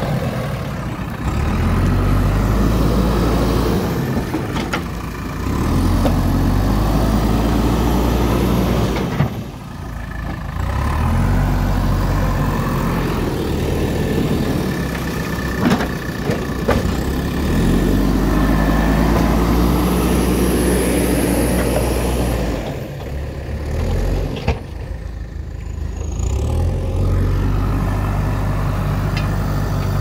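JCB ecoXcellence backhoe loader's diesel engine working under load, revving up and dropping back in repeated cycles as the front loader pushes and lifts dirt, easing off twice. A few sharp knocks from the bucket and loader arms come through over the engine.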